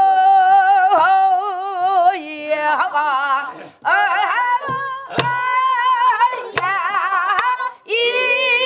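Korean Namdo folk song sung in the throaty pansori style by a woman leading a class that sings along, with wide, shaking vibrato on held notes. About halfway through come a few sharp strokes on a buk barrel drum keeping the rhythm.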